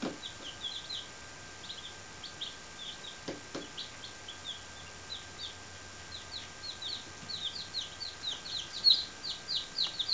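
Four-day-old chicks peeping: a run of short, high, falling peeps that comes thicker and louder over the last few seconds.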